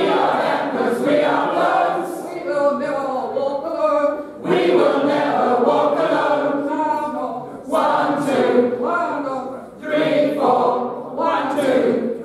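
A large group of voices singing together in unison, a cappella, in phrases with short breaks between them.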